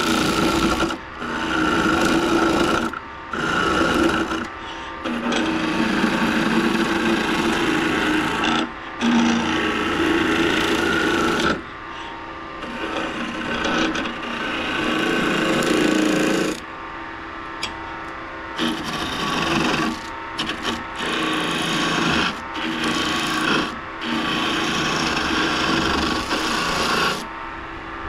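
Curved skew chisel cutting a spinning oak spindle on a wood lathe: a rasping hiss of shavings peeling off in passes, broken by brief pauses.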